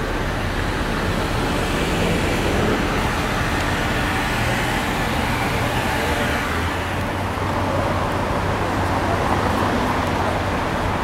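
Steady city street traffic noise with a low, even hum.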